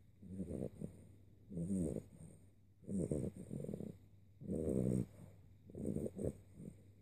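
Slow, rhythmic snoring: five rasping snores about a second and a half apart, with quiet breathing between.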